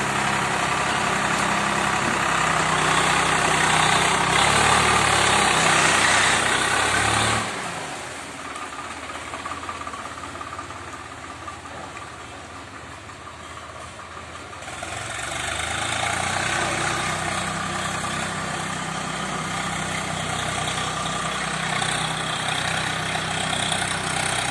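Diesel engine of a Powertrac tractor working under load as it hauls a loaded trailer through mud. The engine sound drops away sharply about seven seconds in and comes back up again a little past halfway.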